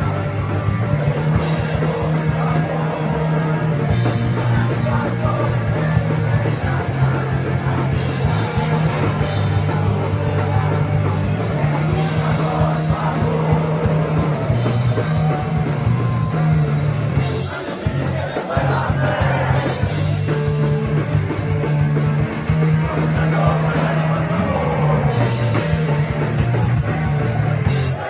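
A melodic hardcore band plays live: distorted electric guitars and bass through their amplifiers over a drum kit. The PA has failed, so the vocals are barely carried. The playing eases off briefly about two-thirds of the way in.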